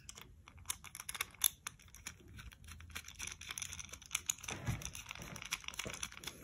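A red-handled precision screwdriver turns a small machine screw through 3D-printed plastic parts into a nut, making a run of quick, irregular light clicks and ticks.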